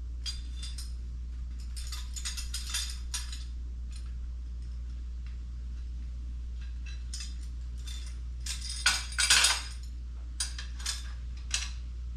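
Small metal parts (bolts, nuts, washers and hand tools) clinking and rattling while bolts are fitted to the transmission jack's brackets, in scattered clusters with the loudest about nine seconds in. A steady low hum sits underneath.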